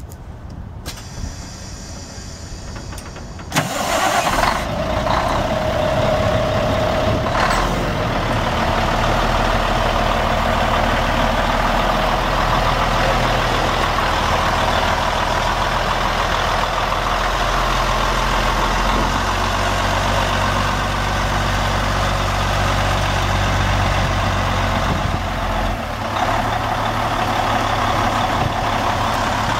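Caterpillar C12 inline-six turbo diesel in a semi truck cranking and firing up about three and a half seconds in, then settling into a steady idle.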